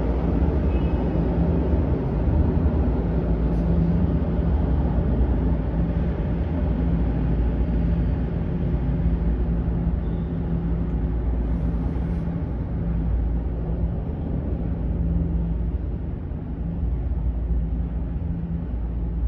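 Steady low rumble of subway trains running in the tunnel, heard from an empty underground platform, with a faint steady hum through it.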